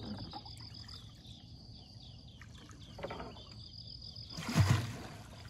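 Steady high-pitched insect buzz, with a soft knock about three seconds in and a loud thump with a brief rush of noise about four and a half seconds in, as the bamboo fish trap is handled on the wooden boat.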